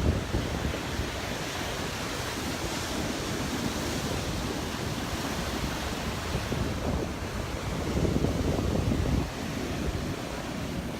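Gulf surf washing onto the beach, with wind buffeting the microphone in low rumbles that swell louder about eight seconds in.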